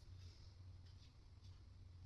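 Near silence: a steady low hum of room tone, with a few faint light ticks.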